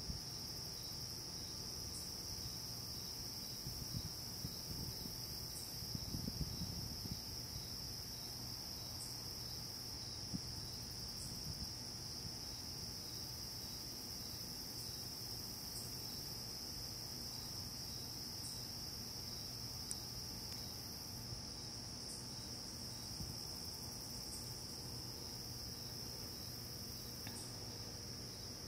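A chorus of night insects, heard as one steady, unbroken high-pitched trill, with faint scattered ticks above it.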